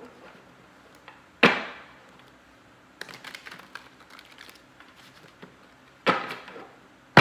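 A deck of tarot cards being shuffled by hand. There are three loud, sudden rushes of cards, each dying away quickly: about a second and a half in, about six seconds in, and at the very end. Between them comes a patter of quick card flicks.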